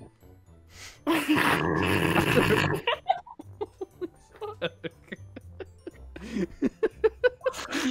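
A person laughing, held in, in short breathy pulses several times a second. About a second in comes a loud, rough, rasping sound lasting nearly two seconds.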